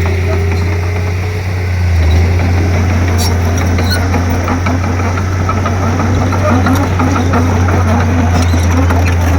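Komatsu D31P bulldozer's diesel engine running steadily under load, easing briefly about a second and a half in and picking up again, with light clicking over the drone.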